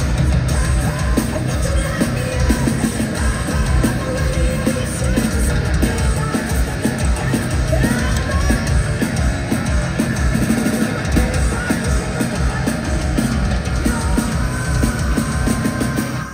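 Heavy metal band playing live and loud, with heavy drumming and distorted guitars; the music cuts off suddenly at the very end.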